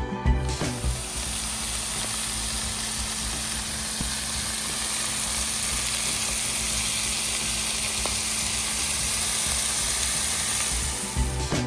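Thin steaks sizzling steadily as they fry in butter in a pan. The sizzle starts about half a second in and cuts off suddenly near the end.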